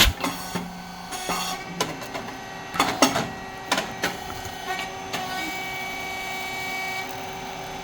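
SYP8080(S2) rice cake popping machine running, with a steady hum from its motor, pump and fan. It gives a sharp pop at the start, then a run of irregular clacks and short bursts of noise over the next five seconds as the moulds cycle.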